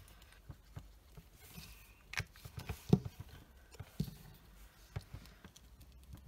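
Light, scattered taps and clicks of a glue pen and small punched card pieces being handled on a wooden tabletop, with a sharper knock about three seconds in.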